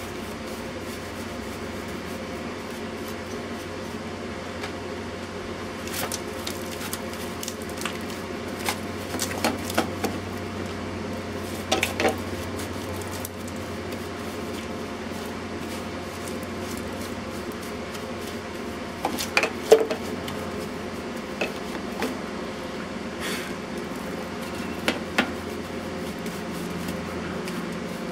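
A metal hand tool clinking and tapping against a sheet-metal electrical box in scattered short clusters, the loudest about twenty seconds in, over a steady machine hum.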